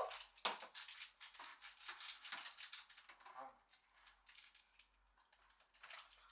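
Quick, light clicks and rustles of small objects being handled at a table, thinning out after about four seconds.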